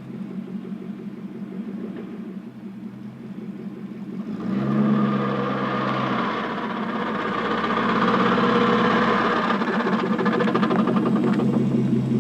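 1984 Porsche 928S V8 idling cold, then, about four and a half seconds in, the sound gets louder as a rapid ratcheting clatter sets in over the engine with the automatic transmission in reverse. It sounds like a roller coaster going up a chain lift. The noise comes only in reverse on a cold car, and it foretold failure of the automatic transmission, which died soon after and needed a rebuild or replacement.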